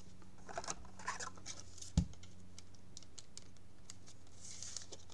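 Small scratches and rustles of a trading card being worked into a plastic sleeve and slid into a rigid plastic top loader, with one sharp tap about two seconds in.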